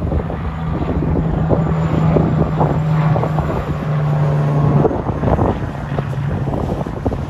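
Diesel semi-truck passing on the highway, its engine giving a steady low drone that is loudest in the middle and fades after about five seconds, with wind buffeting the microphone.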